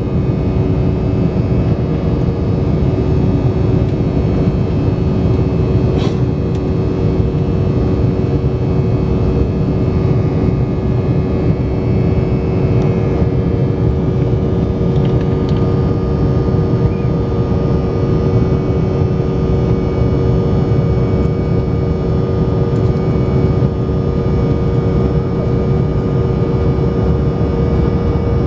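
Cabin noise of an Embraer 190 airliner in flight: the steady rush of airflow and its GE CF34 turbofan engines, with a constant hum of engine tones beneath it. One sharp click about six seconds in.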